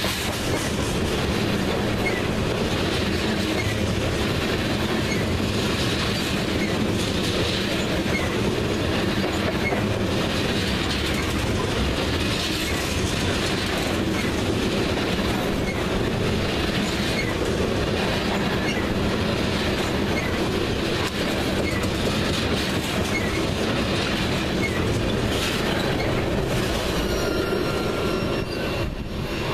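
Loaded tank cars of a CSX crude oil train rolling past close by: a steady rumble of steel wheels on rail with a regular click about every second and a half as the wheels pass over the rail joints. The sound eases a little near the end as the last car goes by.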